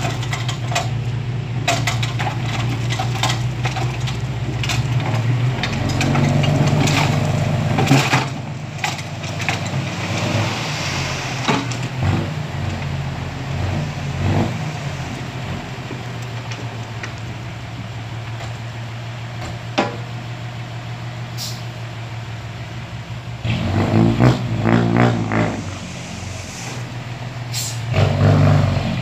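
Six-wheel dump truck's diesel engine running as the hydraulic hoist raises the bed and a load of soil and rocks slides out of the tailgate, with scattered clatters of falling stones. The engine gets louder about six seconds in, and surges again twice later on.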